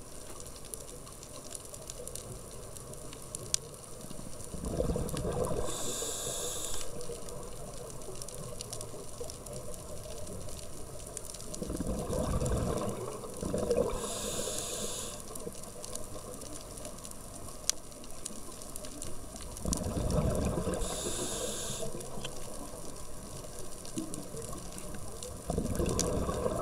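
A scuba diver breathing through a regulator underwater: a rumble of exhaled bubbles, then a hissing inhale, repeating about every seven to eight seconds over a steady low water hiss.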